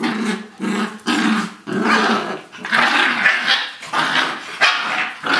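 Young dogs growling in rough play over a tug-of-war, a string of short growls close together.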